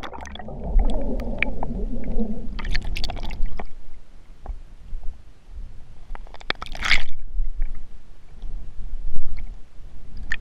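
Muffled underwater sound from a GoPro in its waterproof housing, sunk on a magnet-fishing line in a water-filled well: a steady low rumble and gurgling, with scattered knocks around three seconds in and a louder burst of noise about seven seconds in.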